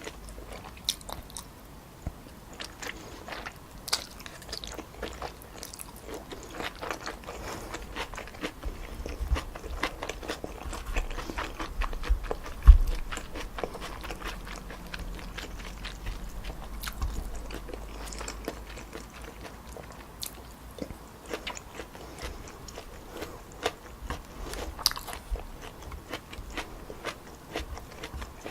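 Close-miked chewing and biting of stir-fried wide glass noodles with pork and vegetables, a run of small wet clicks and crunches. One louder low thump about halfway through.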